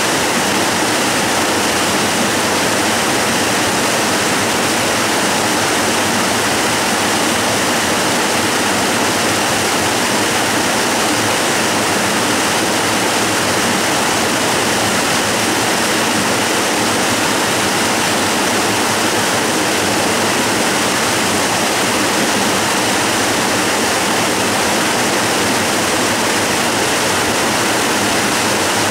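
Waterfall: water pouring over rock in a loud, steady, unbroken rush.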